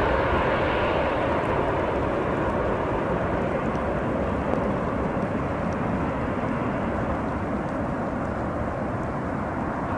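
Twin-engine jet airliner on final approach, its jet engines making a steady rushing noise that slowly fades and grows duller as it flies away.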